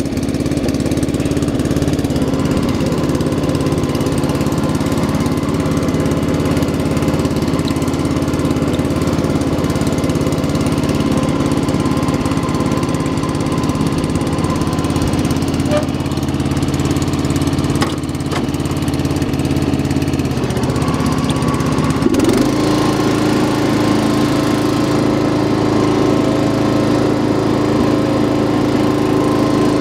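Murray lawn tractor engine running steadily. About two-thirds of the way through it revs up and holds a higher, steady pitch as the tractor is driven.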